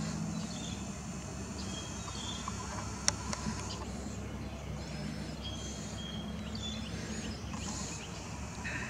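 Quiet outdoor evening ambience: faint, scattered chirping calls over a steady low hum, with a single sharp click about three seconds in.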